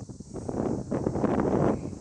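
Gust of wind buffeting the microphone, swelling about half a second in and easing off near the end.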